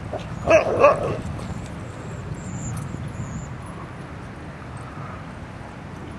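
A dog barks twice in quick succession, two short sharp barks about half a second apart near the start.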